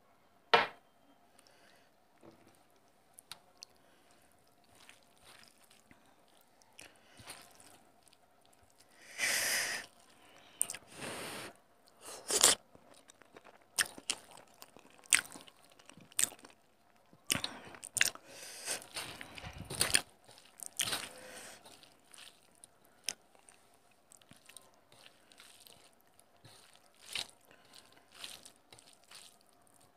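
A hand mixing rice with chicken curry gravy on a metal plate, close to the microphone: wet squishing of rice and gravy, with irregular sharp clicks and scrapes of fingers on the plate. There are a few longer, louder bursts of mixing in the middle stretch.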